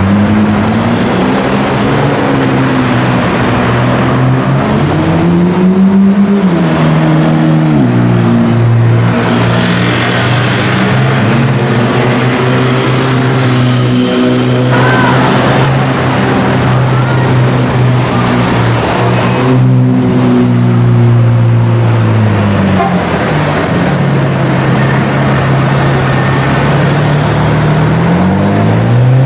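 Liberty Walk Ferrari 458 Italia's V8 through an Armytrix aftermarket exhaust: loud, revving up and dropping back, holding steady revs for long stretches, and climbing in pitch again near the end as the car pulls away.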